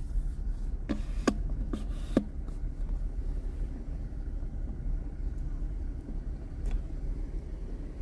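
A car driving slowly, heard from inside the cabin: a steady low rumble of engine and tyres. A few sharp knocks come between about one and two seconds in.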